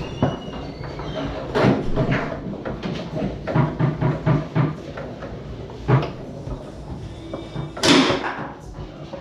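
Foosball in play on a Tornado table: the hard ball knocking off the plastic men and the table walls, with rods clacking, in a run of sharp knocks. The loudest strike comes about eight seconds in.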